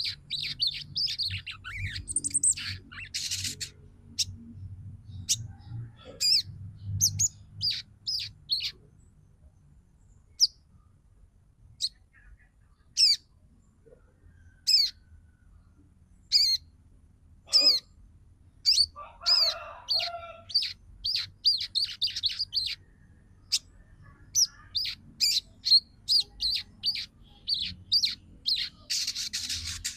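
Female sogon (crescent-chested babbler) calling with runs of quick, high, down-slurred chirps, sparse for a few seconds about a third of the way through and then thick again. This is the female's chattering call that draws males to sing. A faint low hum runs underneath.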